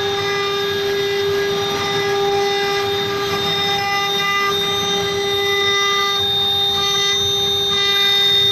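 Two CNC router spindles running at high speed with a steady high-pitched whine, carving a relief into a board, with rougher cutting noise beneath.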